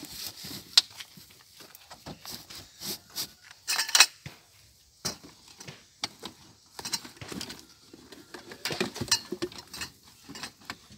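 Irregular clattering and rustling of objects being handled, with scattered sharp clicks; there is a loud click just under a second in and a louder rustle about four seconds in.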